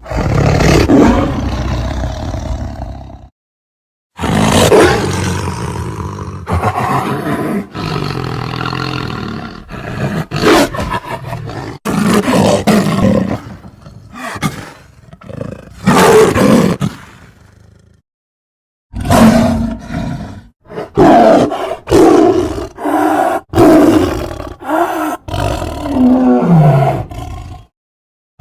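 A string of cartoon-style lion roar sound effects: a long roar, a break, several more roars of varying length, then after another short silence a quick run of about seven short roars and growls.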